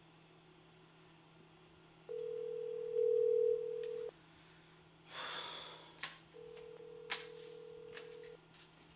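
Phone ringback tone of an outgoing call ringing twice: two steady tones about two seconds long, a couple of seconds apart. A brief rustle and a few soft clicks fall between the rings.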